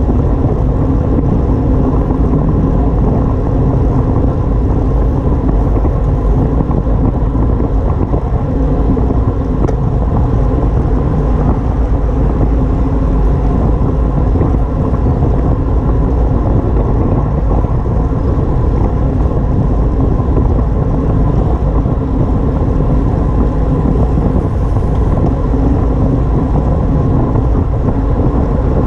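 Steady rush of wind buffeting a camera microphone on a moving bicycle, with road noise underneath; loud and unbroken throughout.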